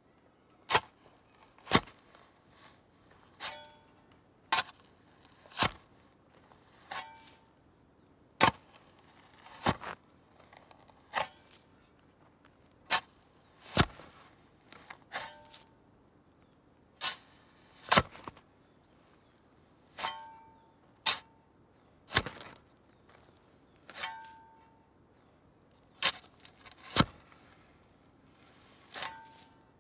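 Spade shovel digging: its blade stabs and scrapes into the ground in sharp, separate strokes, about one every second or so. Several strokes leave a brief metallic ring from the blade.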